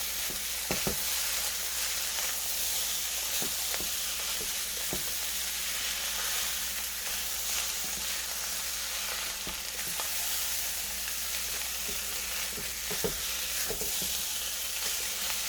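Chicken fried rice sizzling steadily in a hot pan on high heat, with scattered scrapes and clicks of the spatula stirring it.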